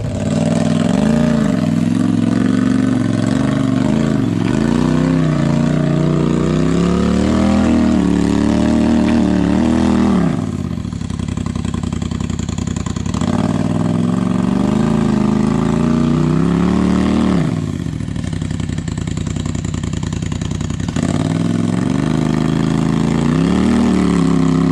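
Off-road buggy engine revving in repeated throttle bursts as it crawls up a rocky ledge, its pitch rising and falling. It drops back twice, about ten seconds in and again near seventeen seconds, then builds revs again.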